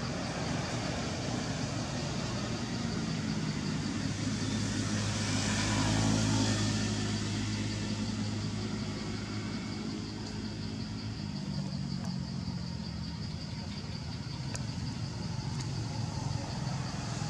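A motor vehicle's engine running nearby, a steady low hum that grows louder about six seconds in and eases off again after about ten seconds, over general traffic noise.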